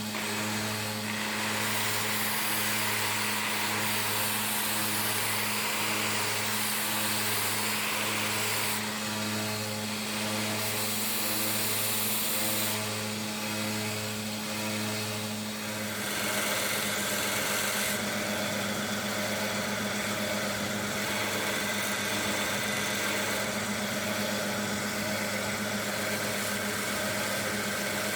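Electric power tool running steadily with a wheel working small steel parts down to bare metal, a constant motor hum under the scrubbing hiss of the wheel. About halfway through, the hiss changes character as the work on the part shifts.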